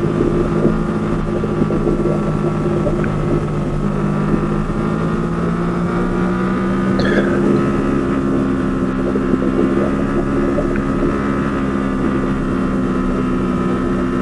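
Aprilia Tuono V4 1100 Factory's V4 engine running under way at fairly steady revs, its pitch rising gently a few seconds in.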